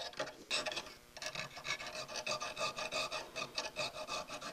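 Needle file rasping back and forth along the sawn edge of a thin sterling silver piece in quick, even strokes, several a second, smoothing out the wavy saw line.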